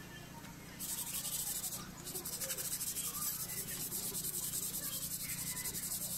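Rapid back-and-forth scrubbing against a surface while the car is being cleaned: a fast, even rasping made of many quick strokes. It starts about a second in, breaks off briefly near two seconds, and resumes.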